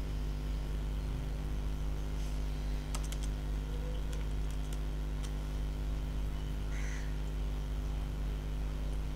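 A few computer keyboard keystrokes: a quick cluster of clicks about three seconds in and single ones scattered after, over a steady low electrical hum.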